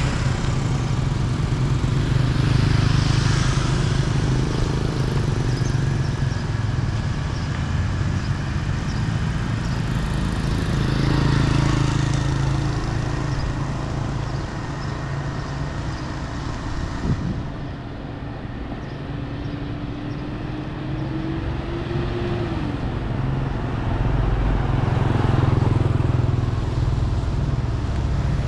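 Motor scooters passing on a wet road, their engines and tyres swelling and fading several times, over a steady low rumble. Near the middle one engine's note rises slightly, then drops away as it moves off.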